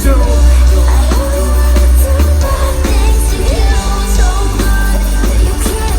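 Loud live pop-rock concert music with a heavy bass and a sung melody line.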